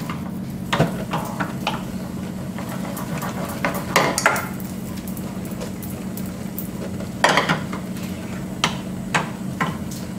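Wooden spoon stirring and scraping fresh pasta around a frying pan on a gas hob, with sharp knocks and clatter of the pan and spoon, loudest about four seconds in and again a little after seven seconds, over a steady low hum.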